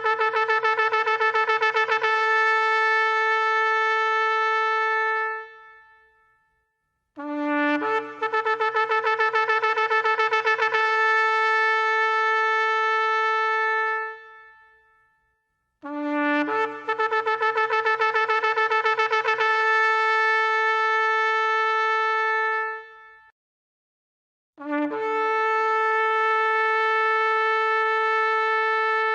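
Ram's horn shofar blown in long blasts: one already sounding, two more, and a fourth starting near the end, each about seven seconds long with a brief silence between. Each blast opens on a low note that leaps up to a higher one, flutters rapidly for the first few seconds, then is held steady and fades out.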